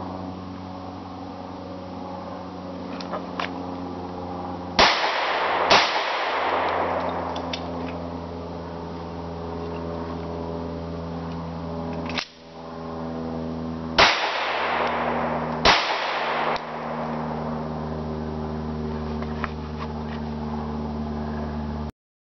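Handgun shots with echoing tails over a steady low hum: two shots about a second apart, a single shot several seconds later, then two more about a second and a half apart. The sound cuts off to silence near the end.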